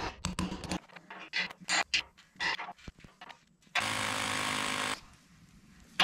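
Hammer knocking on steel at the base of a car-lift column, a quick run of sharp strikes and clicks, then a corded hammer drill with a masonry bit running into concrete for about a second, a little under four seconds in.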